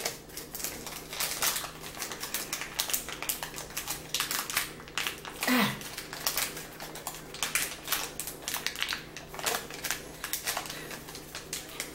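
A hard-to-open snack bag crinkling and crackling as hands pull and twist at it, trying to tear it open: a quick, uneven run of small crackles. A short "yeah" is spoken about halfway through.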